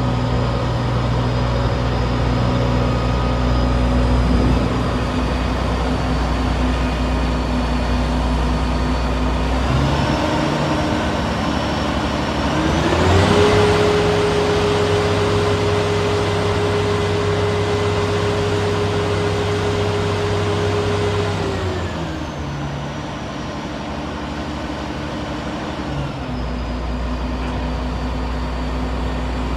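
2010 Claas Lexion 750 combine harvester's diesel engine idling, then raised in two steps to high revs about a third of the way in. It is held there for about eight seconds, then brought back down in two steps to idle.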